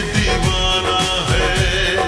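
Slowed-down, reverb-heavy version of a Bollywood film song: music with a steady beat.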